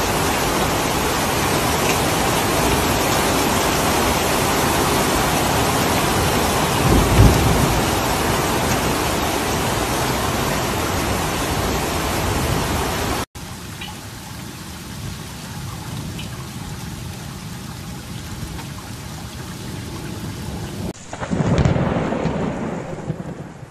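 Heavy thunderstorm downpour: dense, steady rain with a clap of thunder about seven seconds in. About halfway through it cuts abruptly to softer rain, and near the end a low rumble of thunder swells and fades.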